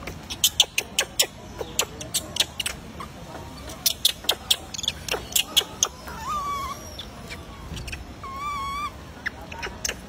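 Two short, wavering animal calls about two seconds apart. Before them comes an irregular run of sharp clicks and snaps, the loudest sounds here.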